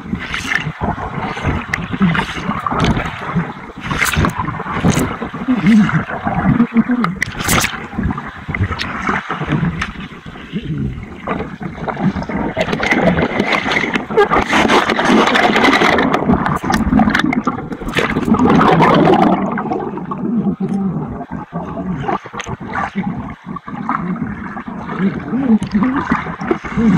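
Pond water splashing and gurgling around a body-worn camera as a swimmer strokes through it, with many sharp knocks and clicks; the sound turns duller about two-thirds of the way through.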